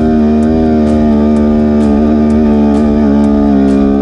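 Sport quad's engine held at high, steady revs under load as it climbs a steep sand slope, its pitch wavering slightly and sagging a little.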